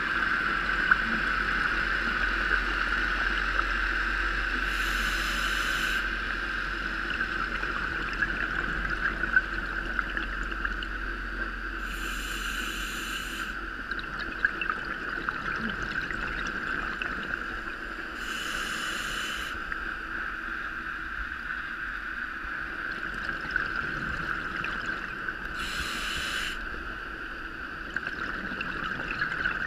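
Scuba diver breathing through a regulator, heard underwater through the camera housing: a rush of exhaled bubbles about every seven seconds, four times, over a steady muffled hum.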